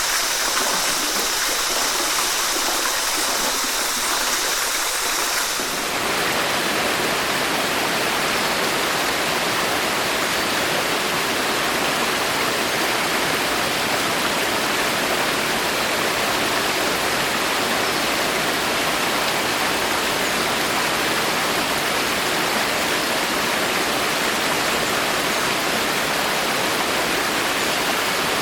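Steady rain falling in a forest, an even rushing hiss. About six seconds in the sound shifts abruptly, losing a bright high hiss and becoming a fuller, deeper rush.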